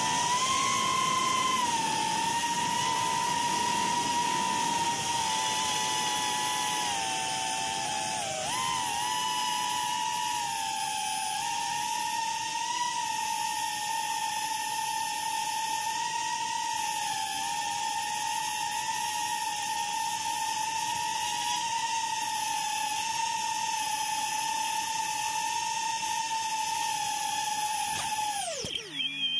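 Small RC aircraft's electric motors whining steadily at a high pitch, wavering slightly, then winding down sharply in pitch and stopping at the very end.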